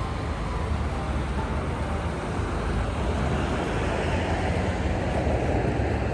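Road traffic: a steady low rumble of vehicles that swells about four to five seconds in, as a vehicle passes close by.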